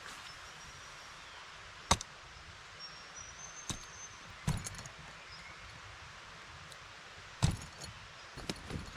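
Outdoor bush ambience: a steady quiet hiss with faint, short, high bird calls, broken by several sharp knocks, the loudest about two seconds in and a cluster near the end.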